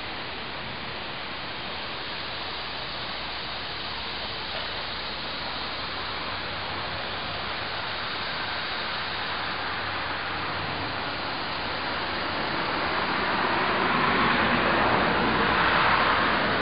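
Steady outdoor hiss, with a car passing on a nearby road: its tyre and engine noise swells over the last few seconds and eases off at the end.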